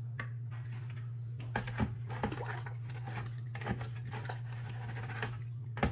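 Scattered light knocks and scrapes from handling the Fluval FX6 canister filter's plastic trays and wet filter media, over a steady low hum.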